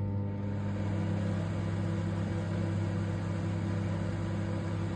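Samsung MS23K3513AK solo microwave oven running, a steady low hum, heating a cup of water.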